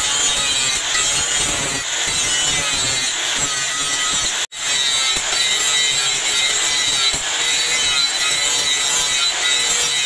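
Angle grinder with an abrasive disc grinding the steel of a meat cleaver blade, a steady loud grinding noise with a high whine. It breaks off for an instant to silence a little before halfway, then carries on.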